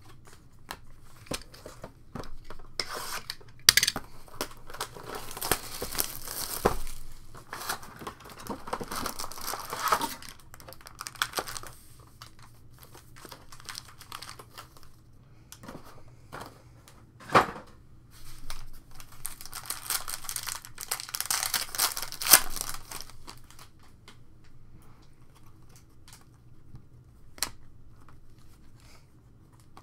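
Foil Panini Prizm card packs crinkling and being torn open by hand, in several spells of rustling separated by quieter handling. A few sharp knocks come among them.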